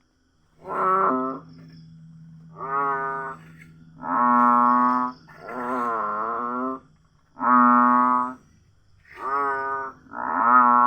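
An animal calling over and over: about seven loud, long, even-pitched calls, each lasting under a second, with a steady low hum under the first few.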